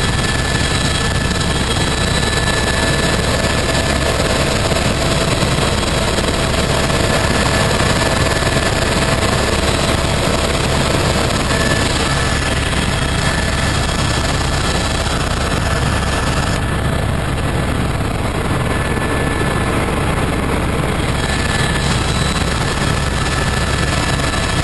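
Steady engine and rotor noise of a helicopter in flight, heard from inside the cabin: a constant low rumble under a few steady high whining tones.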